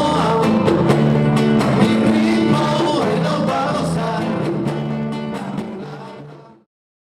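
Son cubano band playing, with a voice singing over guitar and bass; the music fades out near the end and cuts to silence.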